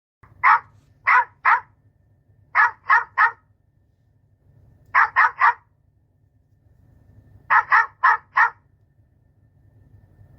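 A dog barking in quick runs of short, sharp barks: three, three, three, then four, a second or two apart. A faint low hum lies beneath.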